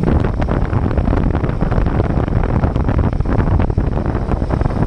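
Royal Enfield single-cylinder motorcycle riding at speed, engine and exhaust running steadily under heavy wind buffeting on the microphone.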